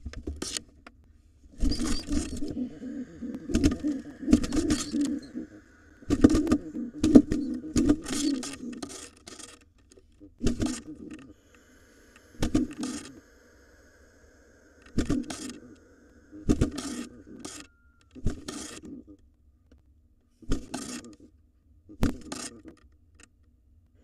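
Birds scuffling, flapping and knocking inside a wooden nest box as a rock pigeon confronts a barn owl. The bursts come thick and fast at first, then singly about every two seconds.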